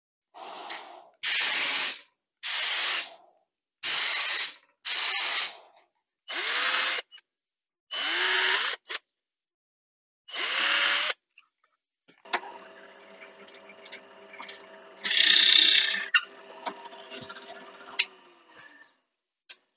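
A cordless drill run in about eight short bursts, drilling small holes through a brass keyhole hanger plate into a mahogany board. Then a pedestal drill press motor runs with a steady hum, its bit cuts into the wood for about a second midway, and the motor is switched off and spins down near the end.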